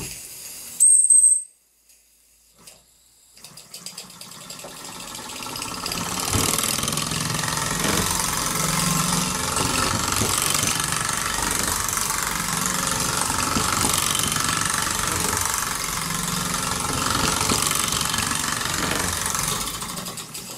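Mamod SR1A model steam roller running under steam, its single oscillating-cylinder engine giving a steady hiss and rattle as it drives along. A brief shrill squeal about a second in, then a short lull before the running sound builds up from about four seconds in.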